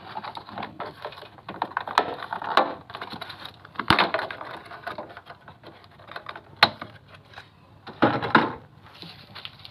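Suzuki Alto 800's plastic door sill trim being pulled up by hand and worked off its clips: a series of plastic clicks, creaks and knocks, loudest about four, six and a half and eight seconds in.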